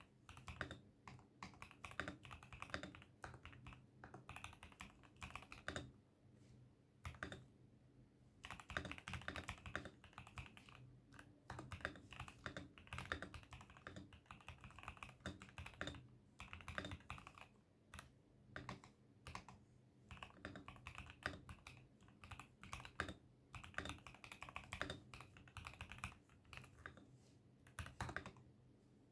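Typing on an ASUS ROG Azoth wireless mechanical keyboard: quick runs of key clacks, with short pauses about six seconds in and again near the end.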